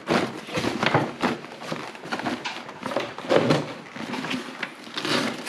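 Nylon storage bags rustling and scraping, with light bumps, as they are pushed and shifted into a plastic hard case.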